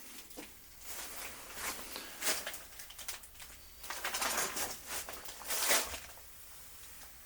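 Intermittent rustling and scuffing of household clutter being handled or walked through, in a few irregular bursts, the loudest a little before the end.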